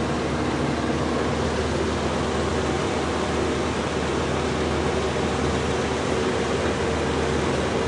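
Steady industrial drone: an even hiss with several low humming tones that hold steady throughout.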